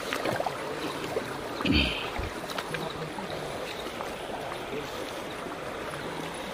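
Steady rush of shallow river water with scattered small knocks, and a brief low thud about two seconds in.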